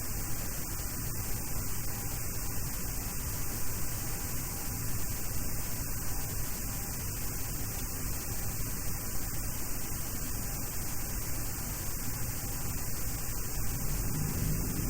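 Steady hiss and hum of a Boeing 737-800 flight deck on the ground, with no distinct events.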